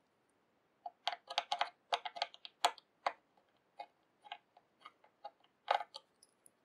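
Irregular light clicks and taps of small metal parts being handled, starting about a second in, as a freshly wound wire coil is positioned on a rebuildable atomizer deck.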